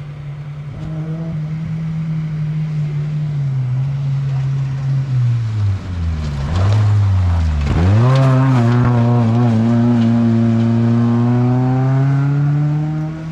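Off-road race car's engine approaching and passing close. The engine note falls, then revs up sharply and holds at high revs as the car goes by.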